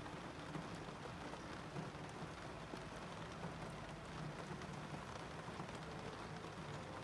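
Rain falling steadily on a parked car, an even patter of raindrops on the car's body.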